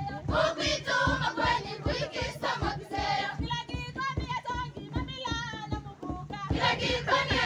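Kamba Kilumi dance song: a group of voices singing together, with a steady low beat pulsing underneath.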